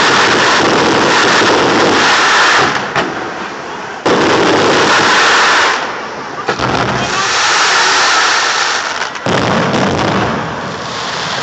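Aerial fireworks display: long spells of loud crackling and hissing from the bursts. Each spell starts abruptly, and new spells come in about four, six and a half and nine seconds in.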